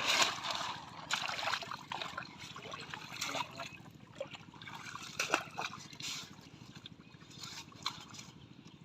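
River water splashing and sloshing in irregular bursts, with trickling in between.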